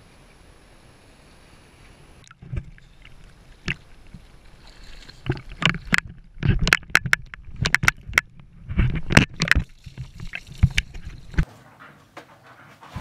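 Water splashing and sloshing around a swimmer beside a sailboat's hull, with many irregular sharp slaps and gurgles close to the microphone, starting abruptly a couple of seconds in and dying away near the end.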